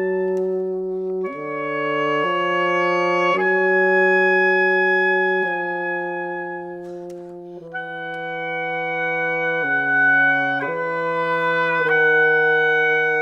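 Oboe and bassoon duo playing slow, long held notes, the bassoon below and the oboe above. Both move to new notes at the same moments every one to two seconds, growing softer midway and louder again after.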